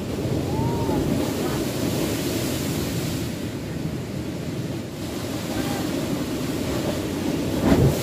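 Heavy surf breaking on a rocky shore, a steady low rushing with wind on the microphone. Just before the end a large wave crashes against the rocks, the loudest moment.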